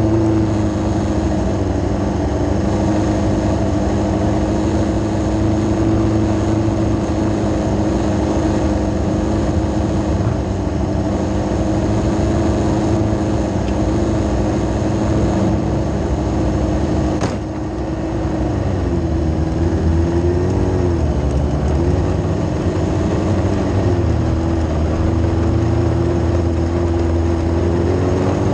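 Micro sprint car's Yamaha R6 inline-four motorcycle engine idling steadily, heard close up from the car itself. About two-thirds of the way in there is one short click, and then the revs rise and fall gently as the car pulls away at low speed.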